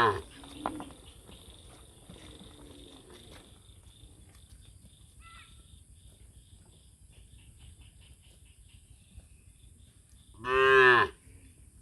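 Cows mooing: one loud, low moo about ten seconds in, lasting under a second, with a fainter moo a couple of seconds in.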